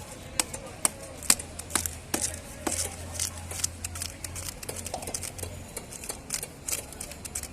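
A knife cutting into a large bhetki (barramundi): a run of sharp clicks and knocks, about two a second at first, then quicker and more irregular.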